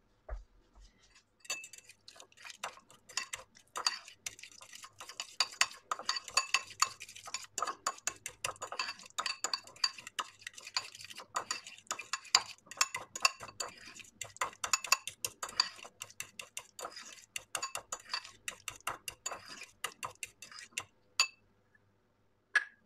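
Metal fork stirring and beating a thick egg-yolk and mustard paste in a ceramic bowl: a rapid, continuous run of clicks and scrapes of the tines against the bowl. It starts about a second and a half in and stops near the end, followed by two single clicks.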